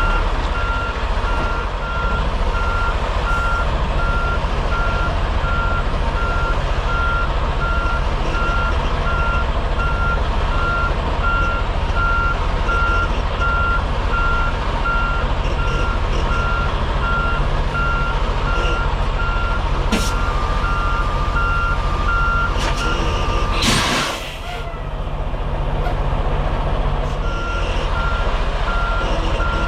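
Semi truck's reversing alarm beeping steadily over the low rumble of the diesel engine as the rig backs into a loading dock. Near the end the beeping pauses and there is a short, loud hiss of air, then the beeping starts again.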